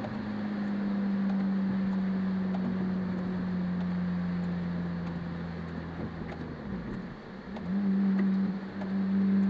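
Car engine running while driving on a wet road, with the hiss of tyres and rain as a steady background. The engine note sinks slowly lower, drops away about seven seconds in, then comes back up louder just before eight seconds as the car pulls on again.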